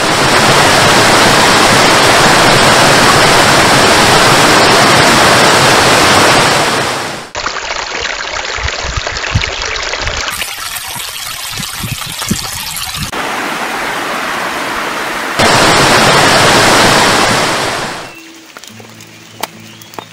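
Loud, steady roar of a waterfall. After about seven seconds it cuts to quieter water trickling and splashing over rocks, and the roar comes back later. Near the end it gives way to soft music with held notes.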